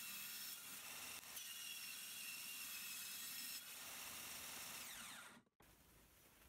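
Faint rubbing of a wooden fence board sliding across a laminated tabletop, cut off abruptly about five seconds in.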